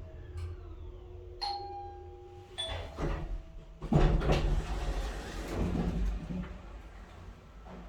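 Old Nippon Elevator Manufacturing 'Elemic' elevator arriving at a floor. Under a low hum from the AC feedback-controlled drive, a two-note falling arrival chime rings about a second and a half in. About four seconds in, a louder rumbling noise runs for about three seconds, which fits the doors sliding open.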